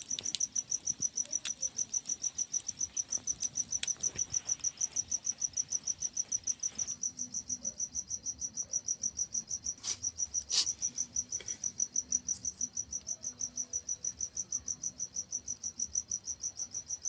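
Cricket chirping steadily in a fast, even pulse of about five high-pitched chirps a second, with a couple of faint clicks about ten seconds in.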